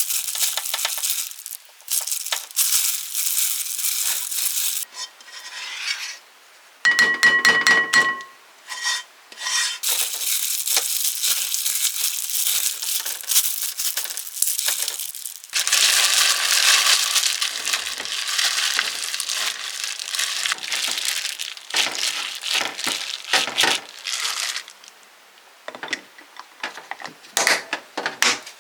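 Kitchen utensils scraping, rubbing and clattering against pans and dishes in short irregular bursts, with one ringing clink about seven seconds in.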